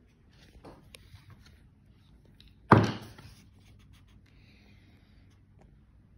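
Light rustling and knocks from a phone being handled and swung around. About three seconds in there is one sharp thump.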